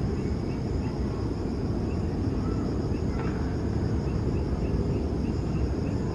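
Distant steady rumble of a Boeing 737-800's CFM56-7B jet engines as the airliner climbs out after takeoff, with insects trilling steadily at a high pitch.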